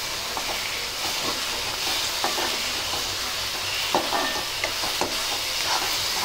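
Crushed green chilli thecha with onion and tomato frying in hot oil in a kadhai, sizzling steadily while a metal spatula stirs and scrapes across the pan in irregular strokes.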